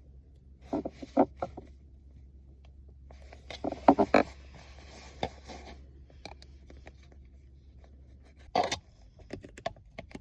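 Clicking and scraping from the small retaining tabs of a Mustang S550's factory shifter reverse lockout being pried out by hand, in a few short bursts with a louder click near the end, over a faint low hum.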